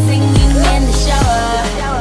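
Background music with a deep, sliding bass, a steady beat and a melody line that bends in pitch.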